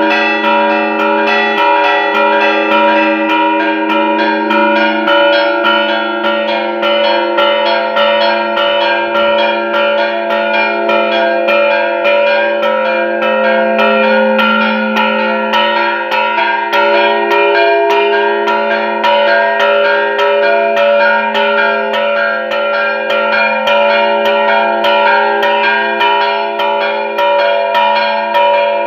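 Church bells rung in a festive repique: several bells struck in a fast, steady rhythm of several strokes a second, their tones ringing on and overlapping between strokes.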